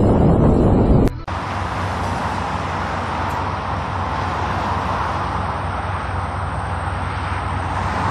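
Loud low rumble that cuts off abruptly about a second in, replaced by a steady rushing hiss with a faint low hum underneath.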